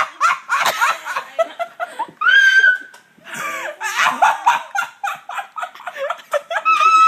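Girls laughing and giggling in short bursts, with one high-pitched squeal held for about half a second, about two seconds in.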